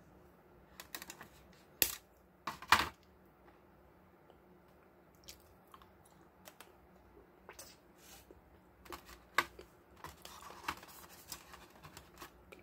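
Chocolate pieces and fingers tapping and clicking against a plastic packaging tray, at irregular intervals, with two louder knocks about two and three seconds in and a run of small clicks near the end.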